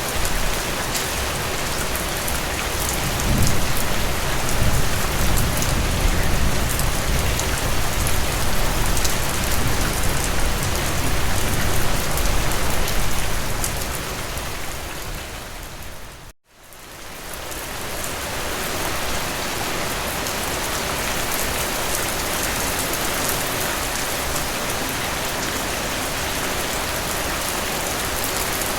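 Steady heavy rain falling on surfaces, an even hiss with scattered drop patters. A deeper low rumble swells in a few seconds in and eases off about halfway through. Then the rain fades out to silence for a moment and fades back in.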